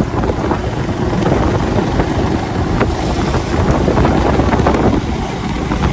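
Wind buffeting the microphone on a moving motorcycle, with the bike's running noise underneath.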